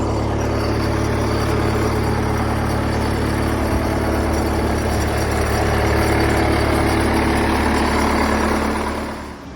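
A motor running steadily with a hiss over it, dropping away near the end.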